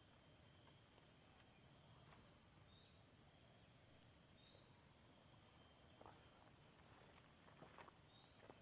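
Faint, steady high-pitched drone of insects such as crickets, with a few soft clicks or rustles in the last few seconds.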